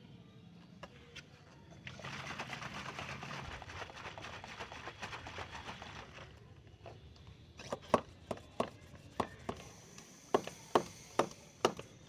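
Water sloshing in a plastic spray bottle as it is shaken for about four seconds to dissolve Epsom salt. A run of sharp clicks follows in the last few seconds.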